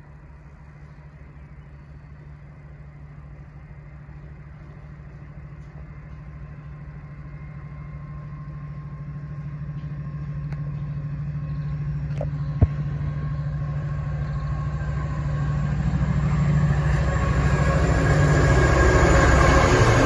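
Class 70 diesel-electric freight locomotive approaching, its engine hum steady in pitch and growing steadily louder until the train is passing close by, with rumble and wheel noise building over the last few seconds. A single sharp click sounds partway through.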